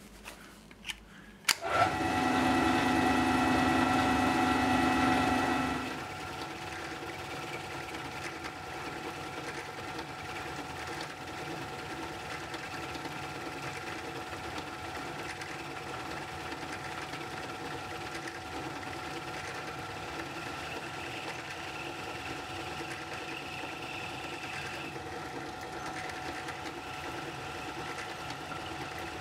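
Restored Lorch lathe running under its belt drive from a retrofitted electric motor while a carbide-insert tool turns a metal bar: a steady whirring hum with several high whining tones. A couple of clicks come first, then it is louder for about four seconds before settling to a steadier, quieter level.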